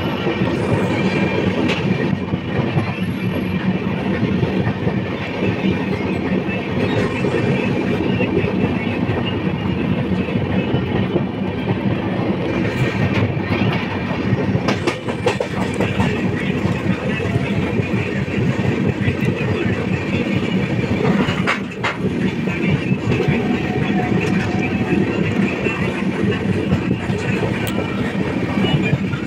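Passenger train running along the track, heard from aboard: steady rumble and rattle of wheels on rail.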